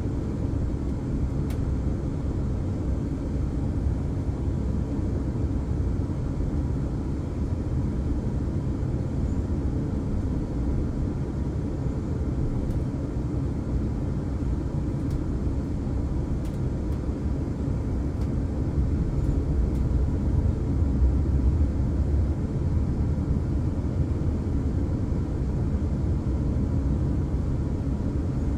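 Passenger train running along the track, heard from inside the carriage: a steady low rumble of wheels and running gear on the rails, swelling a little about twenty seconds in.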